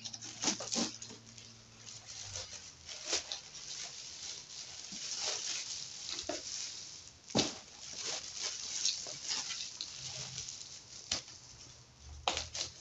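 Crinkling and rustling of clear plastic wrap as a boxed LED light panel is pulled out of it, with cardboard scraping and a few sharp knocks as the box is handled in the shipping carton. The loudest knock comes a little past halfway.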